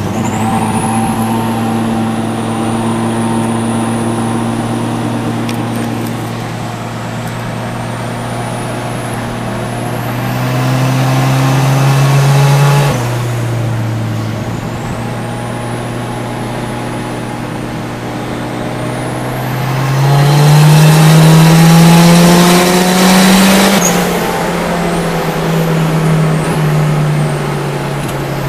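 Turbocharged Nissan Sentra B13's 1.6-litre GA16DE four-cylinder engine heard from inside the cabin while driving. It pulls up in pitch under acceleration twice, loudest about 20 to 23 seconds in, and drops sharply at each gear change. A thin high whistle wavers above the engine note.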